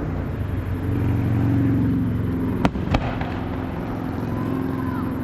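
Two sharp firework bangs about a third of a second apart, over a steady low mechanical hum.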